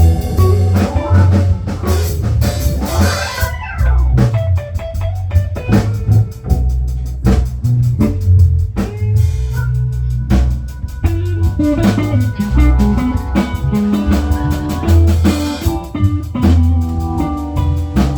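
A band playing an instrumental passage of a song: a guitar line, with notes bent up and down, over bass guitar and a steady drum kit beat.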